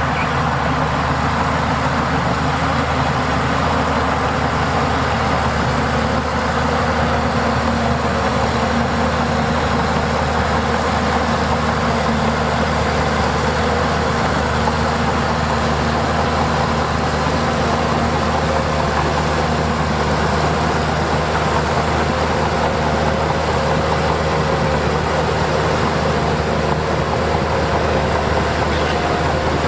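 Heavy diesel engine of earthmoving machinery, a bulldozer or dump truck, running steadily at an even speed.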